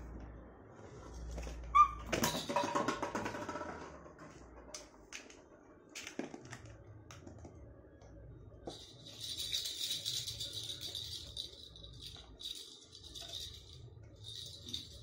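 Plastic toys being handled on a plastic play mat: sharp clicks and knocks, the loudest about two seconds in with a short clatter after it. From about nine seconds on, a steady, high rattling hiss runs under the knocks.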